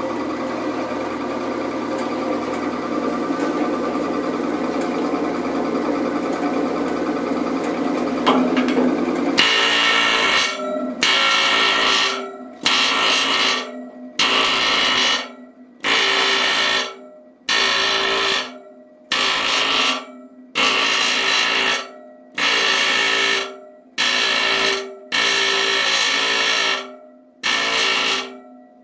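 Small pneumatic air hammer driving a beading tool with a turned-down shank, beading the end of a new 1.5-inch steel boiler tube against the tube sheet. A steady buzzing hammer run for about nine seconds, then short bursts of about a second each, roughly one every 1.3 s, as the trigger is pulsed around the tube end.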